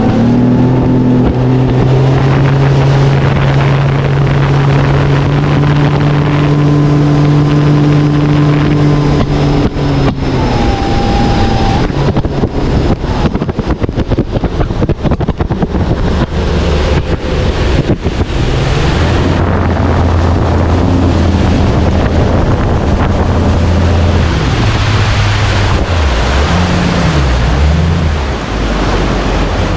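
Bass boat outboard motor running at speed, with wind buffeting the microphone and water rushing past the hull. The engine's pitch holds steady for about the first ten seconds, then drops lower and wavers through the rest.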